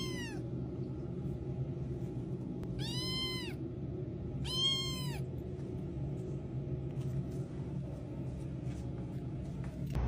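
Domestic cat meowing: the tail of one meow at the start, then two high meows about a second and a half apart, each rising and falling in pitch, over a steady low hum.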